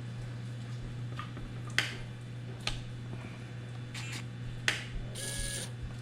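Small plastic parts of the RC truck's shift servo linkage being handled, giving about five sharp clicks and taps, then a short rasping burst near the end. A steady low hum runs underneath.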